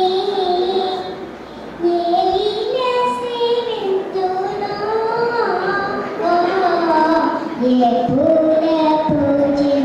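A four-year-old girl singing a Telugu song into a microphone, in held notes that slide between pitches, with a short break about a second and a half in.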